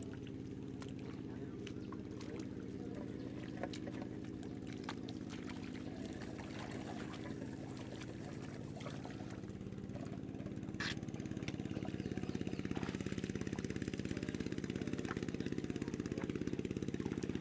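A motor engine running steadily, a low drone that grows louder about eleven and a half seconds in, with faint scattered clicks over it.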